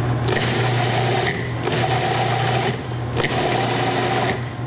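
Food processor motor running in long pulses, its blade grinding frozen watermelon granita into smooth sorbet. The grinding breaks off briefly about every second and a half.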